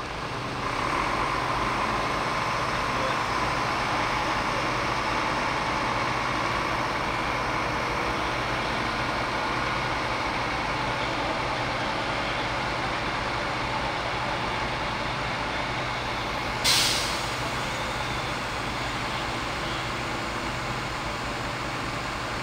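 A fire engine's diesel engine runs steadily, with a short, sharp air-brake hiss about 17 seconds in.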